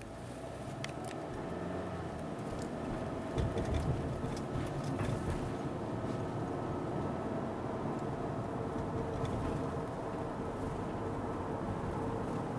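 Inside a moving car: steady engine and road noise that grows louder over the first two seconds, with a few small clicks and rattles and a brief low rumble about three and a half seconds in.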